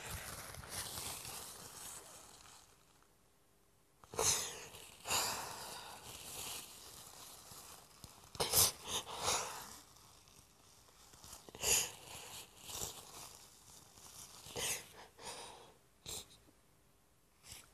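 A woman crying: sniffles and sobbing breaths in irregular bursts, several sharp ones a few seconds apart.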